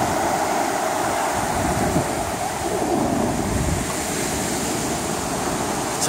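Sea surf: small waves breaking and washing up a sandy beach, a steady rushing wash, with wind buffeting the microphone.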